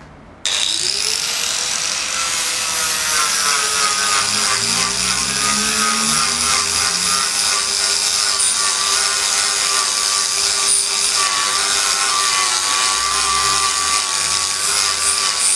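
Electric grinder switched on about half a second in, its whine rising as the motor spins up and then running steadily with a loud, hissing grinding sound.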